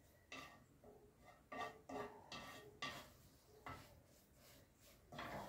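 A cooking utensil knocking and scraping against a pan about seven times while noodles are stirred, each knock leaving a brief ring.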